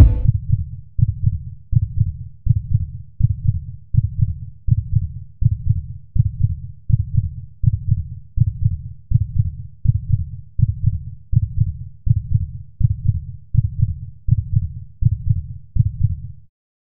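Deep, evenly spaced thumps in a heartbeat rhythm, nearly two a second, stopping suddenly near the end.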